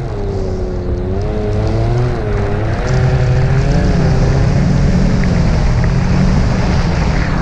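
Ski-Doo Expedition 900 Turbo snowmobile's three-cylinder turbocharged four-stroke engine running under load while riding through deep snow, its pitch wavering up and down and growing louder.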